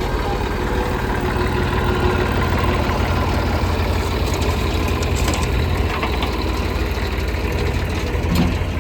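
Diesel engine of heavy machinery running steadily at a low idle, a constant low hum with an even pulsing beat.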